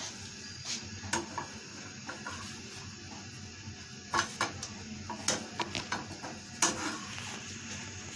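A spatula clicking and scraping against a nonstick frying pan as a slice of frying bread is lifted and moved, a couple of sharp clicks about a second in and a busier run of clicks from about four seconds in, over a steady low hiss.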